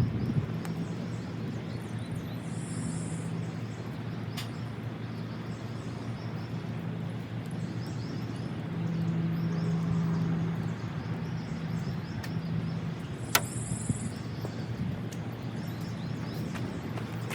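A steady low hum from a distant motor, swelling for a second or two about midway, over outdoor background noise, with two sharp clicks.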